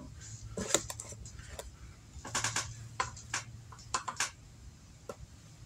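Irregular clicks and clinks of a tablespoon and plastic spice containers being handled while dry seasoning is measured into a plastic bowl, about ten sharp taps in all, bunched twice near the middle.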